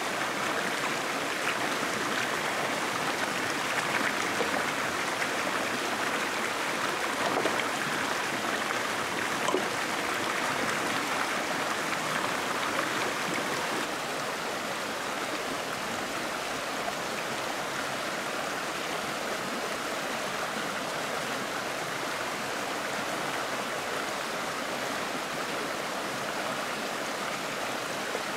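A small rocky stream rushing over a shallow cascade, a steady hiss of running water, with a few faint clicks in the first half. The water sound drops slightly about halfway through.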